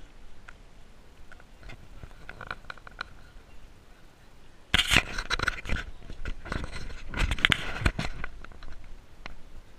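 Horse's hooves striking a wet paved lane, heard from the saddle, with loud knocks and rubbing against the microphone about five seconds in and again around seven to eight seconds.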